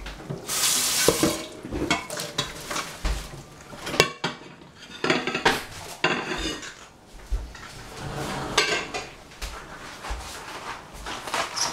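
Kitchen pots, pans and metal utensils clattering and scraping in irregular knocks, with a sharp clack about four seconds in.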